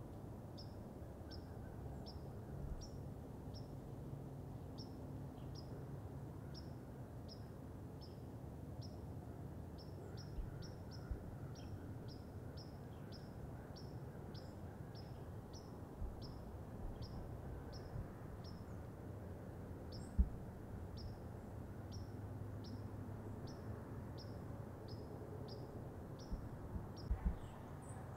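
A small bird repeating a short, high chip note over and over, about one and a half times a second, over a faint low rumble, with a soft knock about twenty seconds in.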